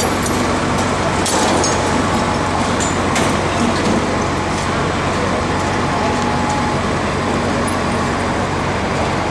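Steady drone of a crane's diesel engine while it lifts a large sign, over a wash of street traffic noise, with a few faint clicks.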